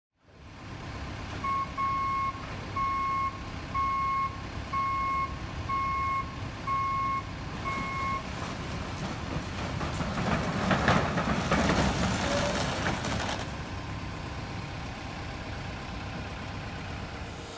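Truck's reversing alarm beeping about once a second, about eight beeps, over the low running of the truck's engine. Then comes a louder rumble and clatter lasting about five seconds as the stack of roof trusses slides off the tilted flatbed onto the street.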